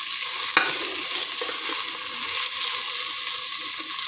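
Chopped onions, ginger and whole spices sizzling steadily in hot oil in a pot as they are stirred with a metal spoon. There is a sharp clink of the spoon against the pot about half a second in.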